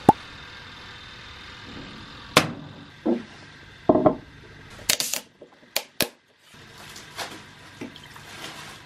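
Tableware clinking at a meal: several short, sharp clicks and clinks, as of chopsticks and bowls at a hotpot, over a faint steady hiss.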